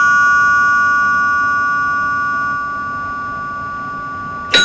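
Two-note ding-dong chime, the higher and lower tones ringing on and slowly fading, with the next chime struck near the end. It is the signal sounded for each alpha particle the detector counts, about one every few seconds.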